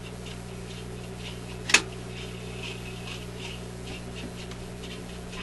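Electrohome 652 suitcase record player running with a record on at its slowest speed, 16 rpm: a steady low hum with faint sound from the record, and one sharp click about a second and three-quarters in.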